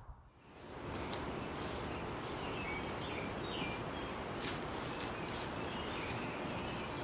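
Backyard ambience: a steady outdoor background hiss with a few short bird chirps, and one brief sharp click about four and a half seconds in.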